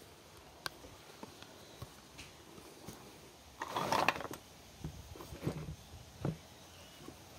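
Old paint being scraped off ABS plastic motorcycle bodywork by hand: a few faint clicks, then a louder scratchy scrape about three and a half seconds in, followed by several short scrapes.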